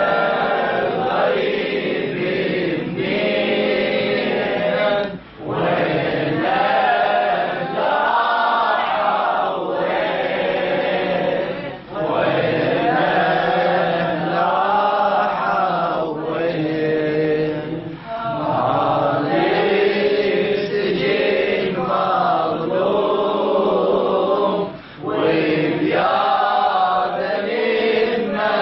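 Melodic Quranic-style recitation chanted in maqam Bayat, with long ornamented phrases separated by brief breath pauses about every six or seven seconds.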